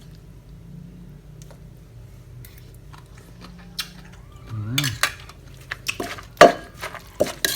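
Spoon and dishes clinking and knocking, a run of sharp clatters in the second half, over a low steady hum.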